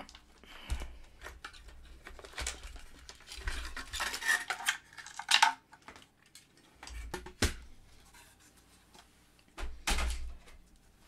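Handling noise from a Hacker Aviemore transistor radio as the speaker wires are pulled off and the metal-framed chassis is lifted out of its cabinet and set down on a silicone mat. It comes as irregular clicks, knocks and scrapes with a few dull thumps, loudest about halfway through.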